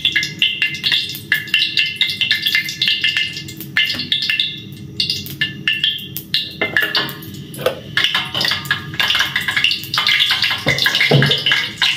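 Music with drums and percussion, playing steadily with a quick, pulsing beat.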